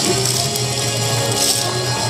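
Yosakoi dance song with a steady bass line and bright high percussion.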